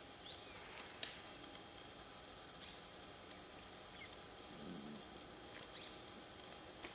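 Faint wild-habitat ambience: scattered short bird chirps over a thin steady high drone, with one sharp click about a second in and a brief low sound a little after the middle.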